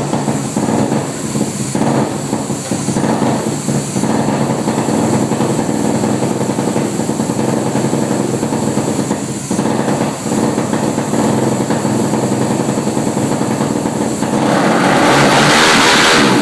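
Suzuki LTR450 single-cylinder four-stroke engine running steadily on an engine dyno. Near the end it gets louder and hissier for about two seconds.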